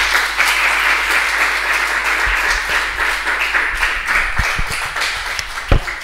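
Audience applauding in a lecture hall: steady clapping from many hands. A single sharp thump near the end is the loudest moment.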